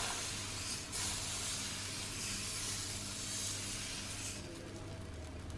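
Dosa batter sizzling on a hot iron tawa as a ladle spreads it in circles. The hiss drops away about four seconds in.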